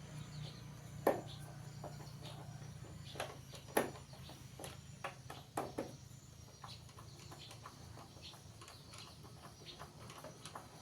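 A few sharp, irregular knocks, the loudest about a second in and near four seconds in, over a low steady hum that fades out about halfway through.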